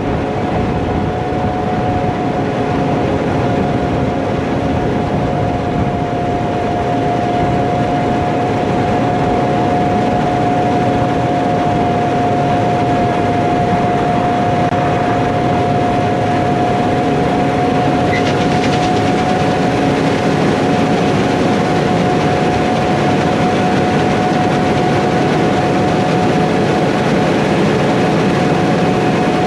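Heavy harvest machinery running steadily under load, a constant engine drone with a steady whine over it.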